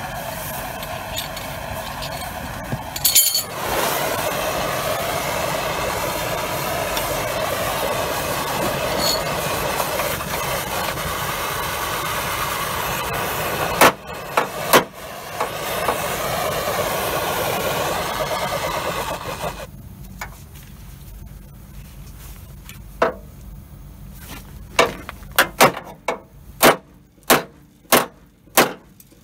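A steady mechanical drone cuts off about two-thirds of the way through. Near the end comes a run of sharp hammer blows on metal, roughly one a second, from straightening a bent steel tow-eye bracket.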